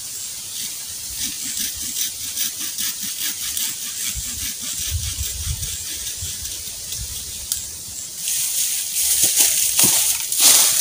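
Footsteps crunching through dry bamboo leaf litter, louder and denser from about eight seconds in as the walker comes closer. Before that, fainter crackling and rustling of dry leaves and stalks.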